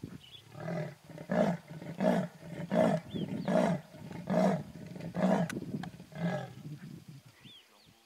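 Leopard's sawing call: a series of about eight deep, hoarse grunts, evenly paced and slowing slightly toward the end, with faint bird chirps behind.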